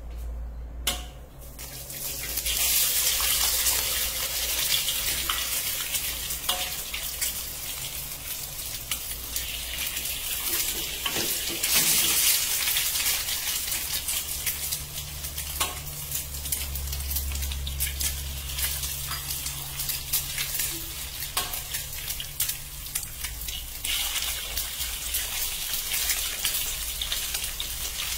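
Eggs frying in hot oil in a steel wok: a steady sizzle that starts about two seconds in as the first egg hits the oil, with a few short sharp clicks as more eggshells are cracked.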